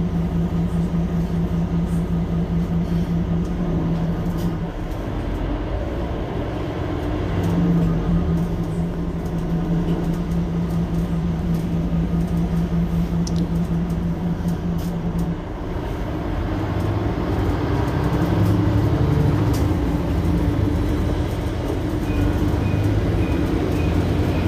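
Mercedes-Benz Citaro C2 hybrid city bus standing at a stop, its diesel engine idling with a steady hum that drops away for a couple of seconds about five seconds in. After about fifteen seconds it changes to a lower, more uneven running sound. A few short high beeps come near the end.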